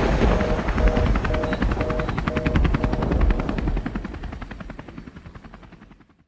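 Intro sound design: a rapid, evenly spaced chopping pulse with short repeated tones over it, fading out over the last few seconds.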